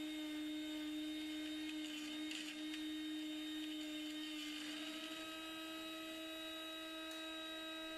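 Small high-speed electric motor of a Proxxon MF 70 micro-milling machine running steadily as a fairly quiet, even hum with a whine of overtones, its pitch shifting slightly about five seconds in.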